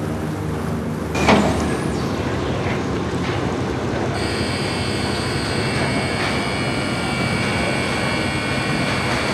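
River ferry's engines and machinery running, a steady mechanical noise with one loud clunk about a second in. From about four seconds in, a steady high whine joins it.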